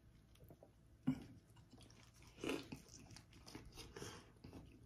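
A person biting into and chewing a consommé-dipped slice of birria pizza close to the microphone. There is a sharp bite about a second in, then another crunchy bite and chew about two and a half seconds in, with quieter chewing between.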